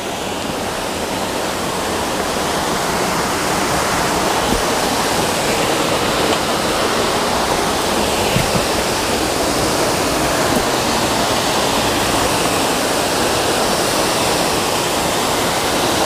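Waterfall rushing steadily, growing louder over the first few seconds and then holding even.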